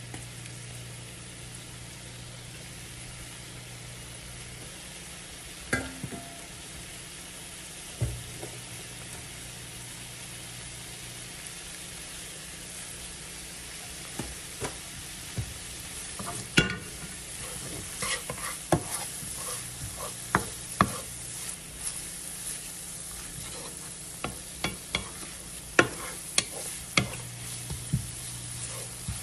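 Red onions and garlic sautéing in butter and lemon juice in a nonstick skillet, with a steady sizzle. A wooden spoon stirs and knocks against the pan, now and then at first and much more often in the second half.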